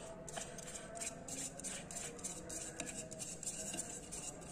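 Faint, irregular scraping and ticking of a Shimizu jet pump's impeller being turned by hand and screwed onto the motor shaft's thread.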